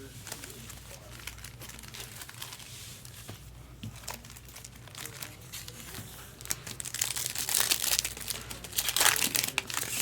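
Foil trading-card pack wrappers crinkling and tearing open, with light rustling at first and louder, busier crinkling from about six and a half seconds in.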